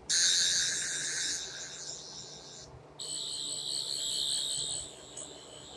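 Toy 12th Doctor sonic screwdriver's electronic sound effect: a high warbling buzz played twice, the first lasting about two and a half seconds, the second starting about three seconds in and going quieter about two seconds later.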